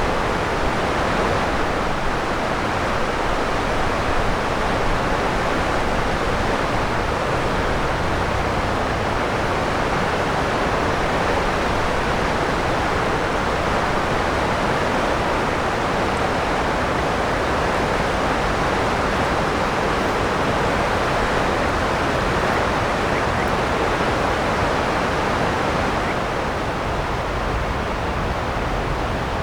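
Steady rushing of flowing river water, an even hiss without breaks or pitch.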